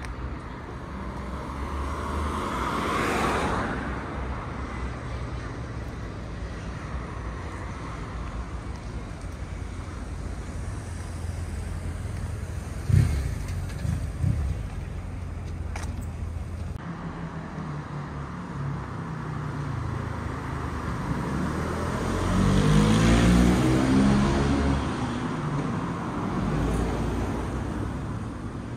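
City street traffic: a steady low rumble with a vehicle passing about three seconds in and a louder one passing close by around twenty-three seconds in. Two short sharp knocks come near the middle.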